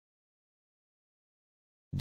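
Silence, with a voice starting to speak right at the very end.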